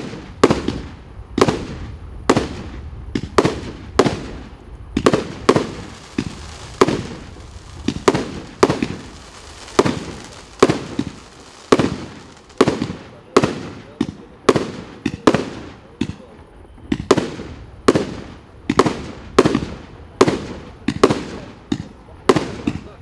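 Black Knight 35-shot, 30 mm firework battery (F3 cake) firing shot after shot at an even pace, about three every two seconds, each a sharp bang with a short fading tail as the shells burst in the air.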